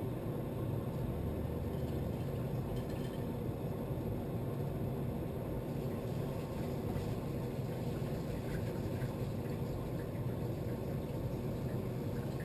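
Harman HydroFlex60 wood pellet boiler firing hard, a 'rip roaring' pellet fire in the burn pot: a steady low rumble of flame with an even machine hum underneath.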